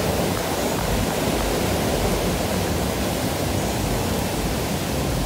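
Rushing water of a mountain stream tumbling over boulders: a steady, even noise.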